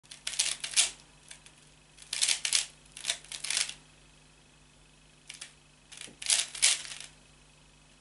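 A 3x3 Rubik's cube being turned by hand during a blindfolded solve: rapid plastic clicking of layer turns in five short bursts, with pauses of a second or more between them.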